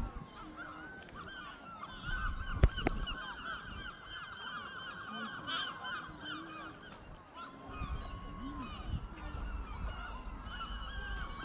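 A large flock of seagulls calling over one another, a dense, continuous chorus of short, repeated cries. A single sharp click cuts through about two and a half seconds in.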